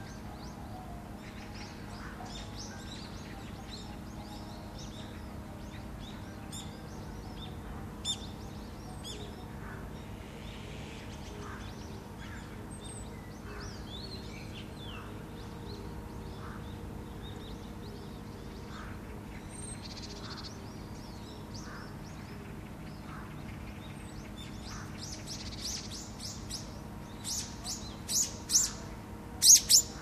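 Small songbirds chirping: short, high chirps scattered throughout, then a run of louder calls in the last few seconds, the loudest just before the end.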